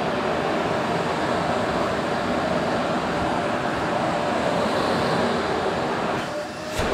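Qilive vacuum cleaner running with a steady whooshing hum. Near the end the sound briefly drops and muffles, then comes back with a short knock.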